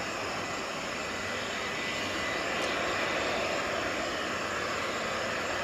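Boeing 787-9 Dreamliner's turbofan engines at approach power as the airliner comes in to land, a steady jet rumble with a thin high whine, swelling slightly midway.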